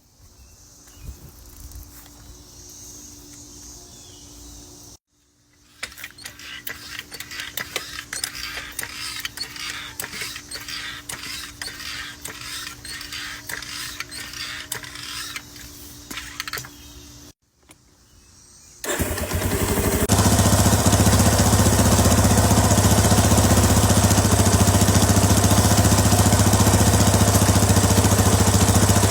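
Quieter rapid clicking and ticking, then about two-thirds of the way in an ATV engine comes in loud and runs steadily to the end.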